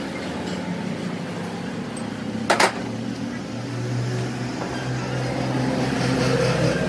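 Workshop machine hum, steady and growing a little stronger after the middle, with one sharp metal clank about two and a half seconds in as a crankshaft piece is freed from a lathe's chuck with a T-handle chuck key.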